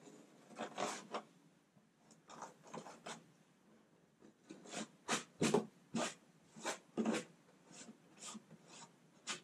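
Short scraping strokes of a hand tool shaving the burrs off the jigsaw-cut plastic edge of a kayak deck hole, an irregular one or two strokes a second, sharper from about halfway in.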